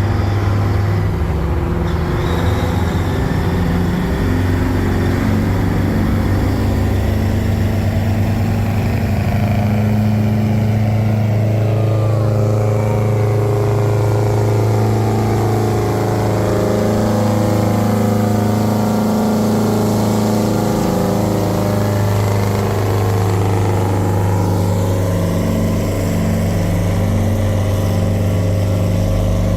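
Heavy diesel truck engines running loudly and steadily, with the engine note slowly rising and falling.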